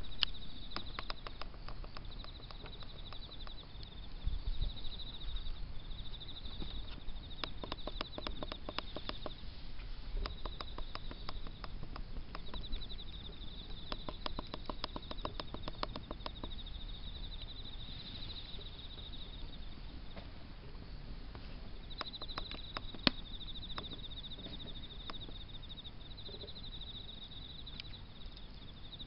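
Insects chirping in a high pulsing trill that comes in repeated bursts of a few seconds, with fast runs of even ticks and one sharp click about 23 seconds in, over a low rumble.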